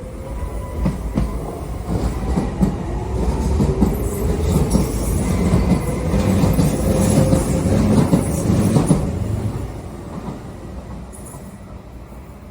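Docklands Light Railway train pulling away: the whine of its electric traction motors rises in pitch while the wheels click over rail joints. It grows louder, then fades after about nine seconds as the train moves off.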